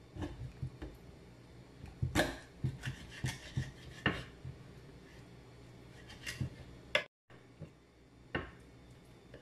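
Kitchen knife scraping and cutting a whole tilapia on a wooden chopping board: irregular rasping strokes with light knocks on the board, bunched about two to four and a half seconds in, then a few more near the end.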